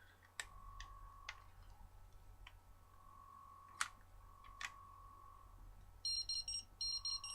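Plastic clicks from a Power Rangers toy morpher being handled and its buttons pressed, then a quick run of electronic beeps from the toy near the end.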